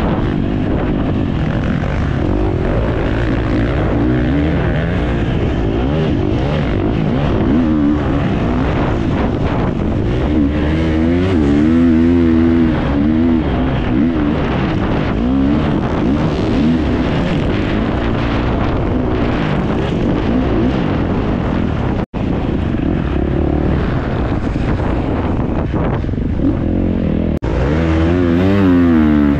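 Off-road racing motorcycle engine running hard, its revs rising and falling over and over, broken twice by a momentary dropout.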